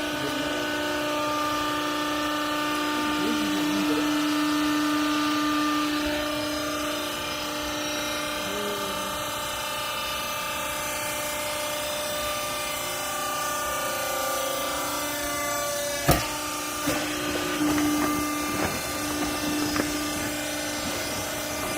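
Hydraulic baler's motor and pump running with a steady hum. A single sharp knock comes about sixteen seconds in, followed by a few smaller knocks.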